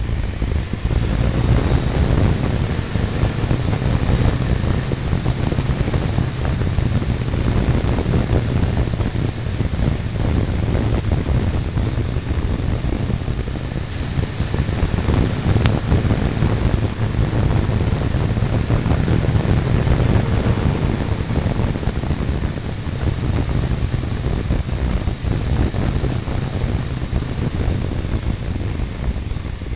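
Triumph Tiger 955i motorcycle riding along, its inline-three engine running under steady wind rush and buffeting on the mirror-mounted camera's microphone.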